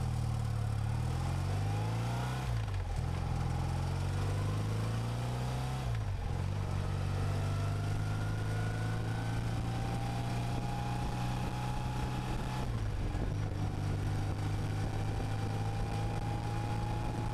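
BMW air-cooled flat-twin motorcycle engine under way, pulling up through the gears with two shifts in the first six seconds, then holding a steady cruise at road speed. Wind rushes over the onboard microphone throughout.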